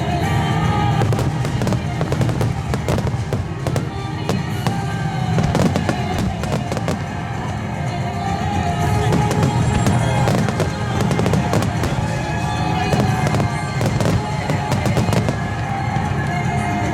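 Wide star mine fireworks barrage bursting and crackling in rapid, overlapping succession, with music playing alongside.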